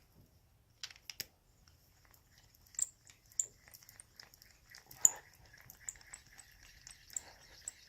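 Hurdy Gurdy tubular key cutter cutting a depth into an ACE-type tubular key blank: scattered clicks and scraping of the bit in the metal, then from a few seconds in a faint steady whir, the swirl that signals the cut has reached flush depth.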